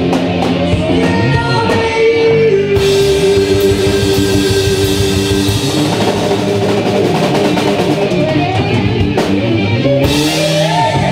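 Live rock band playing a ballad: two electric guitars, a drum kit and keyboard under a male lead vocal. A long note is held for about four seconds from a few seconds in, with a cymbal crash as it starts and another near the end.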